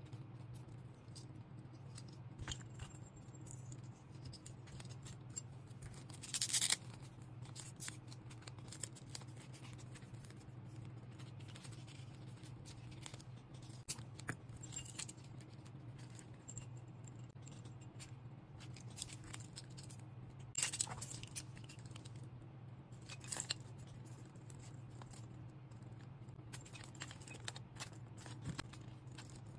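Small metal keychain parts clinking and clicking as they are handled, with a few louder scrapes, over a steady low hum.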